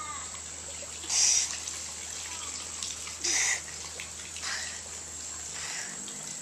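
Pool water splashing under a young synchronised swimmer's arm movements: two sharp splashes about two seconds apart, with softer splashing and trickling between.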